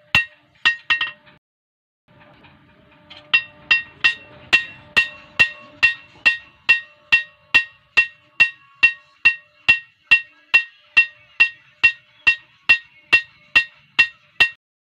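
Hand hammer striking a billhook blade on an iron anvil plate, each blow with a clear metallic ring, in a steady rhythm of about two and a half blows a second. There are a few blows at first, a short pause, then steady hammering from about three seconds in.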